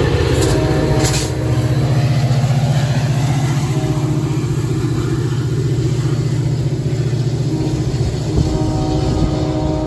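EMD F40PH-3 diesel locomotive working under power as it moves off, its engine running with a steady low throb. Two short sharp hisses come about half a second and a second in.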